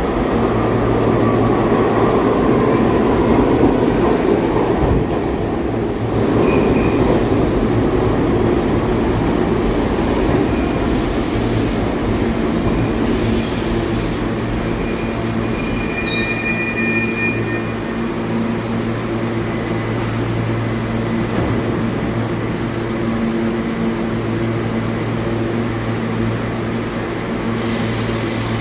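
New York City subway train running on the rails, a steady loud rumble with a low hum, and short high wheel squeals about a quarter of the way in and again a little past halfway.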